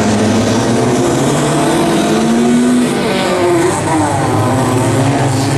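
Bilcross race car engines running hard as several cars race together through a corner, their pitch rising and falling with the throttle.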